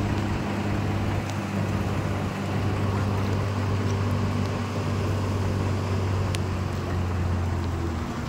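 A steady low motor hum over a constant rush of floodwater; the hum drops away near the end.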